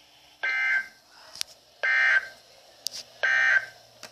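Three short bursts of EAS/SAME end-of-message data tones, the raspy digital warble broadcast to close a NOAA Weather Radio Required Weekly Test. Each burst lasts about a third of a second, and they come about every second and a half, with a few sharp clicks between them.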